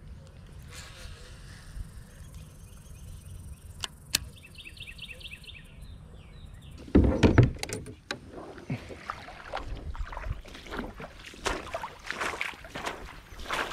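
Footsteps crunching along a gravel and mud riverbank, with the knocks and rubbing of handling a fishing rod. A loud dull bump about seven seconds in. Before that there are a few light clicks and a short run of faint high chirps.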